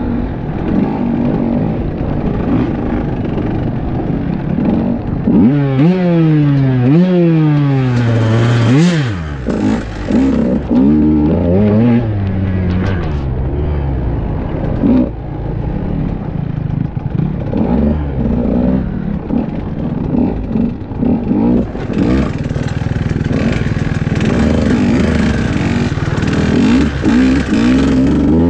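KTM EXC enduro motorcycle engine revving up and down close by, heard from on the bike. About six seconds in its pitch climbs in three quick rising sweeps, dropping back between each as it shifts up. Near the end the engine note is joined by a rushing hiss.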